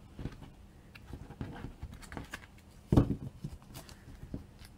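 Light rustling and clicking of trading cards and a card tin being handled, with one sharp knock about three seconds in as the tin is moved aside.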